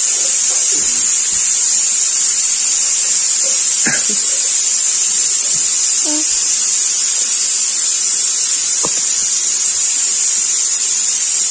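A loud, steady high-pitched hiss, over which a baby makes a few faint coos and babbles, about four seconds in and again about six seconds in.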